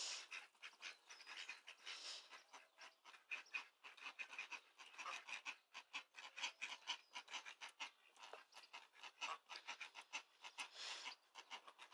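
Faint, rapid, soft breathy calls from a group of domestic ducks, Indian Runners among them, chattering together, several calls a second overlapping.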